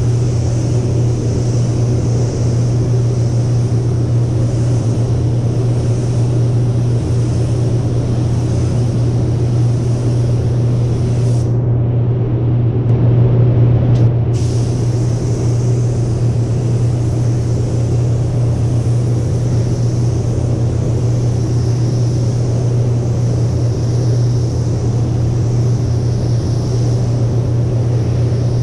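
Paint booth ventilation fans running with a steady low rumble, under the hiss of a compressed-air paint spray gun spraying a car door. The high hiss drops out for a few seconds near the middle.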